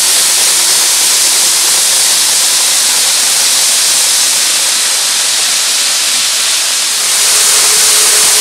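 KATO N-gauge E4 series Shinkansen model train running along the track: a steady, loud hiss of small wheels rolling on rail. About seven seconds in the sound gets slightly louder and a faint steady tone joins it.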